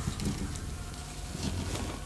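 Bubble-wrap plastic packaging crinkling and crackling in irregular small clicks as it is handled and pulled open, over a steady low hum.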